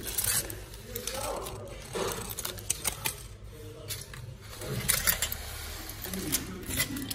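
Aluminium foil burger wrappers crinkling and crackling in short irregular bursts as the burgers are handled, with voices in the background.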